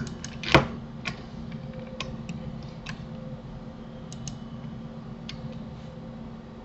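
Scattered clicks of a computer keyboard and mouse, irregularly spaced, the loudest about half a second in, over a steady low electrical hum.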